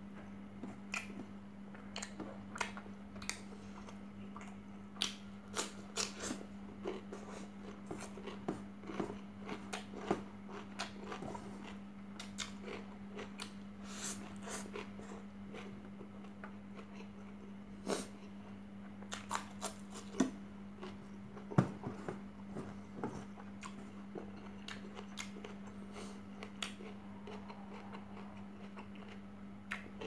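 Close-up eating sounds of rice and chicken eaten by hand: chewing and lip smacks, with fingers scraping and tapping on a stainless steel tray, heard as many short sharp clicks over a steady low hum.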